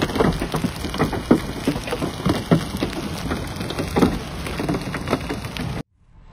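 Tornado winds buffeting a phone microphone: a loud, steady rushing noise broken by frequent gusty thumps, cutting off suddenly near the end.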